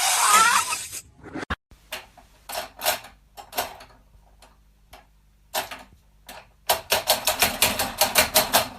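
A loud sound with a wavering pitch for about the first second, then a series of sharp taps or clicks, sparse and irregular at first, turning into a rapid run of about six clicks a second near the end.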